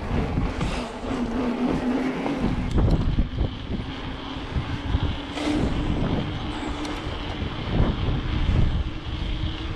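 Mountain bike rolling along under a helmet or bike-mounted GoPro, with wind buffeting the microphone, a steady hum slowly rising in pitch, and a few sharp knocks from the bike.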